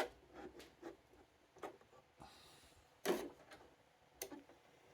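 Scattered light clicks and knocks of computer hardware being handled, the loudest a sharp click at the start and a knock about three seconds in.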